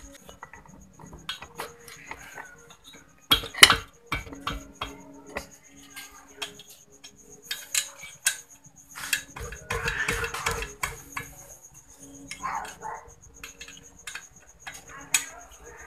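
Metal tools and engine parts clinking and knocking as the cylinder head of a Yamaha V80 two-stroke engine is unbolted with a T-handle wrench and worked loose by hand. Irregular clinks and clanks, the loudest a few seconds in and a cluster of them later on.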